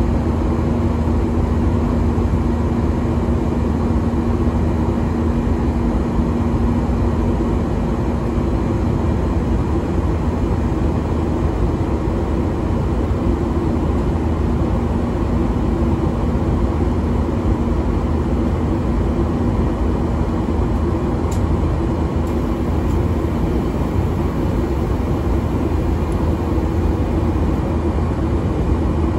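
Steady in-flight cabin noise of a Boeing 737-800 heard from a window seat: the constant drone of its CFM56 turbofan engines and rushing airflow, with a steady low hum running through it.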